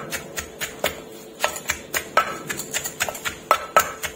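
Wooden pestle pounding long beans and chillies in an earthenware mortar, making uneven knocks about two a second.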